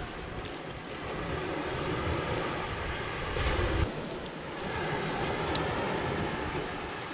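Steady rush of wind and sea surf, with a louder low rumble of wind on the microphone about three and a half seconds in that cuts off suddenly.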